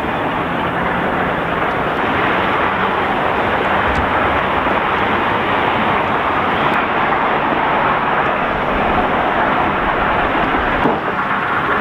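Heavy machinery's engine running steadily under a dense, even noise.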